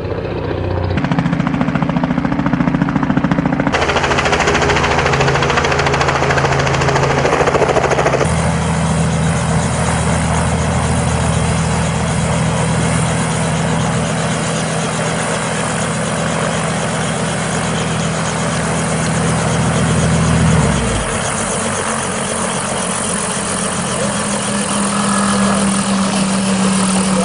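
Helicopter running close by: a loud, steady noise of rotor and engine. Its tone shifts abruptly several times.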